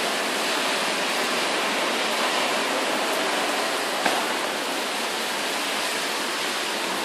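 Thunderstorm downpour: rain falling in a steady, even hiss.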